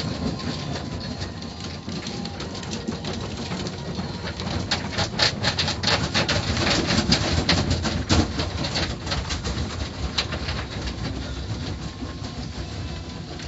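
Automatic car wash heard from inside the car: water spraying and splattering on the windshield and body, with many sharp spatters over the wash equipment running. It quietens near the end.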